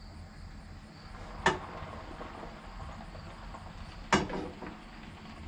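Two sharp knocks about two and a half seconds apart as picnic table parts are handled during assembly; the second rings briefly.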